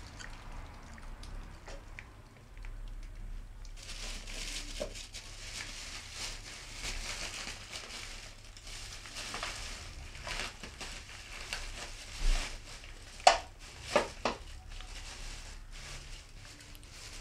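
Plastic bag crinkling and rustling as a cat pushes its head into it and rummages, with three sharp, louder clicks about three-quarters of the way through.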